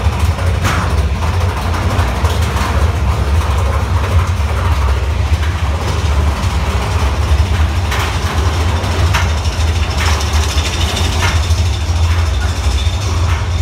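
Big Thunder Mountain Railroad mine-train coaster running on its track, a steady low rumble with occasional sharp clanks and knocks.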